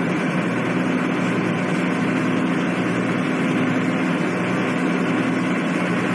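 A car ferry's engines running steadily, a low drone heard aboard the ship.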